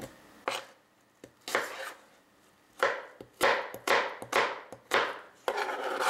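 Chef's knife chopping raw apple into small cubes on a cutting board: a few slow cuts, then a quicker run of crisp cuts about two a second from about three seconds in.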